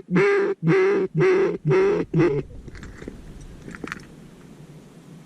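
A series of loud duck quacks, about two a second, in an even run that stops about two and a half seconds in.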